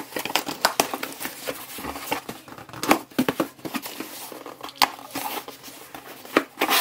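Cardboard shipping box being opened by hand: flaps pulled back and tape torn, with irregular crinkling, tearing and scraping of cardboard and packing.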